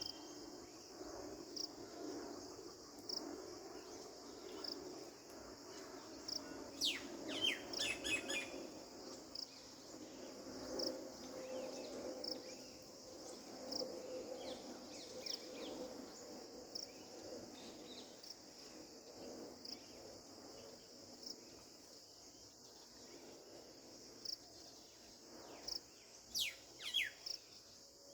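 Steady high chirring of insects, pulsing about once a second, with bird calls: clusters of sharp, quickly falling whistles about a quarter of the way in and again near the end.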